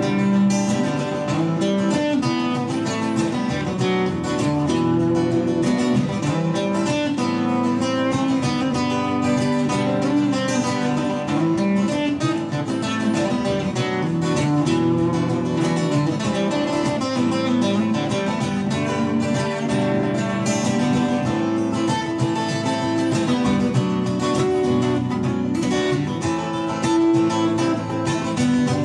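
Acoustic guitar strummed in a steady rhythm through the whole stretch, with no break.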